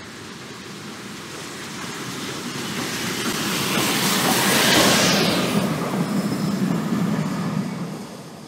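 GWR 1400-class 0-4-2 tank engine 1450 passing with its auto coach, steam showing at the chimney. The sound grows to a loud peak about halfway through as the engine goes by, then fades as the train moves away.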